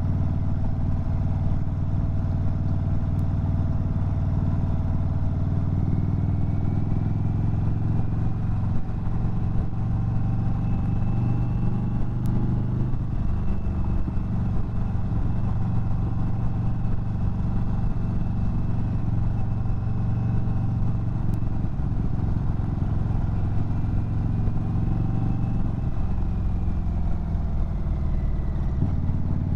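Indian Chief Bobber Dark Horse's Thunderstroke 116 V-twin running under way, heard from the rider's seat. The engine note rises as the bike accelerates in the first half and eases off near the end.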